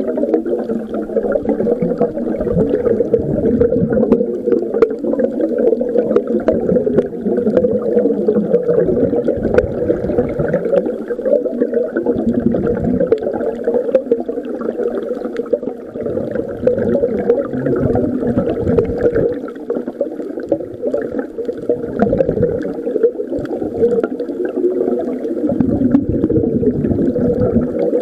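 A person snoring, a deep rasping snore recurring about every two to three seconds over a steady noisy background.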